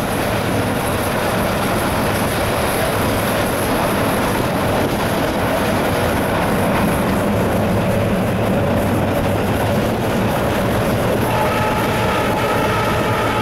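Alco WDM3D diesel locomotive under way, heard from inside its cab: the ALCO 251 V16 diesel engine's steady rumble mixed with wheel and rail noise. About eleven seconds in, a steady set of higher tones joins the running noise.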